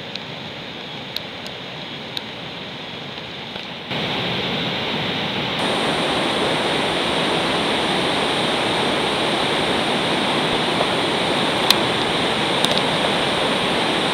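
Steady rushing roar of whitewater from Duebendorff Rapid on the Colorado River. It steps louder about four seconds in and again shortly after, with a few faint ticks.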